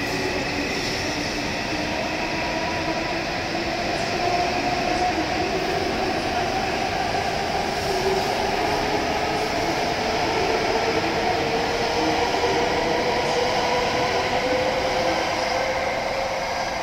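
W7 series Shinkansen train pulling out of a station: a steady rolling rumble with a motor whine whose pitch rises slowly as the train gathers speed.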